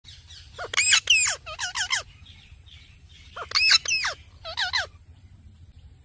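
Indian ringneck parakeet calling: two bursts of several quick, sharp calls, about three seconds apart.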